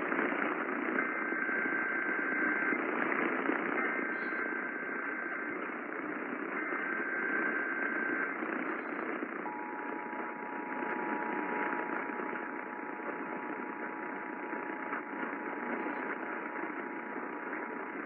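Emergency Alert System Required Monthly Test received on an AM radio with static: three bursts of SAME header data tones, then the two-tone attention signal starting about halfway through.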